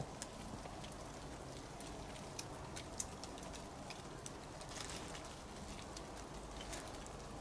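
Wood campfire crackling faintly, with sparse irregular pops over a low steady hiss.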